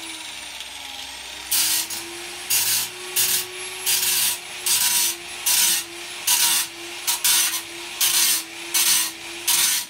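Angle grinder with a thick cutting disc running with a steady motor whine. From about a second and a half in, the disc is touched against the steel plate about once a second, each touch a loud grinding rasp: light, repeated passes to trim a few millimetres off the edge of a hole. The grinder stops at the end.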